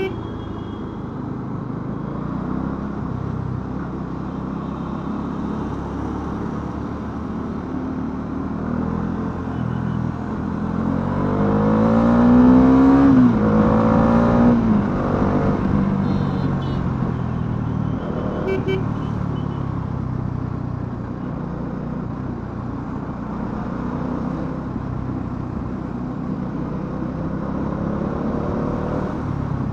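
Bajaj Dominar 400's single-cylinder engine running under way on the road. About eleven seconds in it revs up in a rising pitch and gets louder, drops sharply, holds a couple of seconds, then eases back to a steady cruise.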